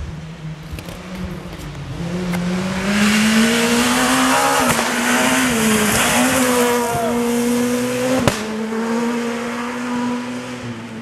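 Skoda Fabia S2000 rally car's two-litre four-cylinder engine at high revs, approaching and passing with gravel hissing under the tyres; the revs dip briefly twice, then the engine note holds steady and fades as the car draws away. A single sharp crack about eight seconds in.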